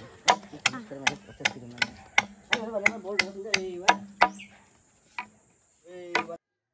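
A machete chopping into green bamboo poles: sharp knocks about three a second, stopping about four and a half seconds in.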